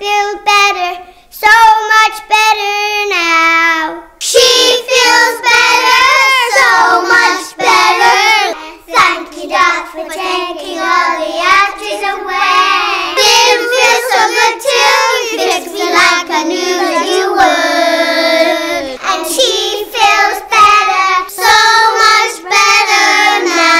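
Young children singing a jingle together, one or two voices at first, then a louder group from about four seconds in.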